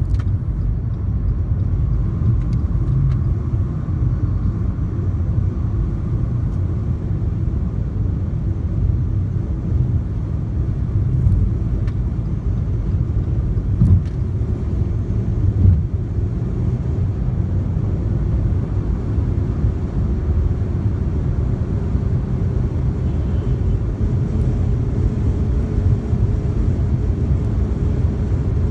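Steady low road and tyre rumble inside the cabin of a Fiat 500e electric car driving along at speed, picked up by a phone mounted on the dashboard. Two brief thumps come about halfway through.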